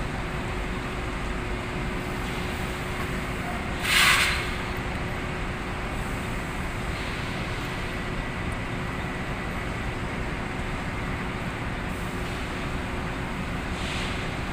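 Inclined belt conveyor running steadily with a constant hum. About four seconds in there is a short, loud rushing noise, and a weaker one near the end.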